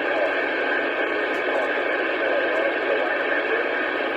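CB radio receiver putting out steady static hiss from an open 11-meter channel during a sporadic-E skip opening, narrow and tinny-sounding, with a weak distant voice fading in and out under the noise.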